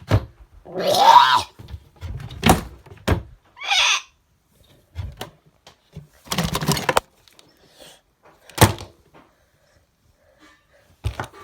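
Irregular knocks and thuds in a small room, about a dozen over the stretch, with a few longer rustling or scraping bursts between them.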